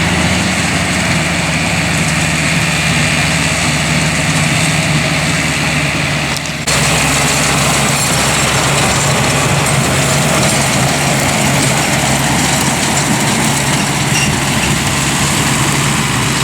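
Tractor engine running steadily at a constant speed. The sound dips and shifts abruptly about six and a half seconds in.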